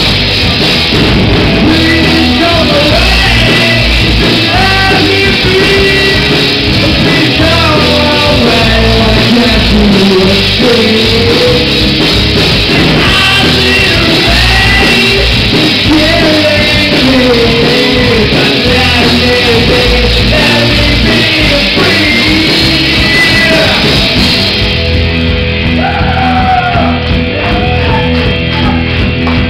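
Live rock band playing loud: drum kit, electric guitars and bass under a singer's half-shouted vocal. Near the end the cymbals drop out and a single held note carries on.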